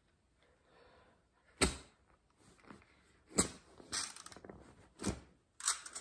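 A knife stabbing repeatedly into a stuffed fabric bundle: about five sharp thuds spread over several seconds, the first, about a second and a half in, the loudest.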